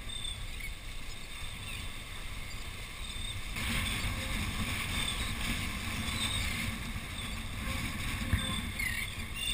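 Wind buffeting the microphone over small waves washing against jetty rocks, the surf getting louder about a third of the way in. A few faint gull calls.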